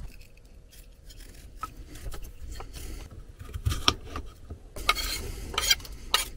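Kitchen knife peeling and chopping potatoes on a wooden cutting board: scraping and scattered sharp knife taps on the board. Near the end the cut potato pieces are scraped off the board into a frying pan.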